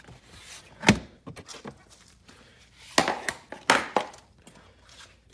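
Plastic interior trim being pulled and popped up off a car floor: sharp snaps and knocks about a second in, then a cluster around three to four seconds in, with faint rustling between.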